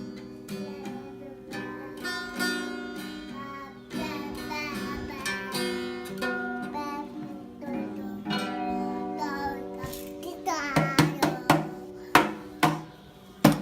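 A child strumming and plucking a guitar while a young child sings along in long held notes. About ten seconds in, a run of loud, sharp strikes takes over.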